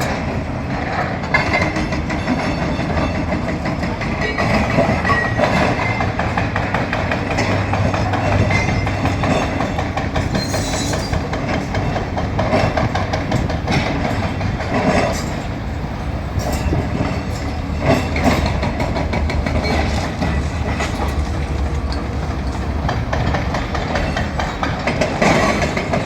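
JCB machine's diesel engine running steadily under load during demolition, with irregular knocks, clanks and crunches of breaking masonry and debris.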